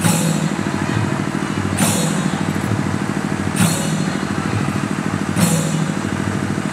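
Dance percussion: a fast, even drum beat with a cymbal-like crash about every two seconds.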